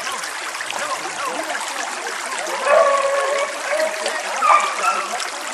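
Small creek running steadily over rocks, with a few drawn-out calls starting about halfway through.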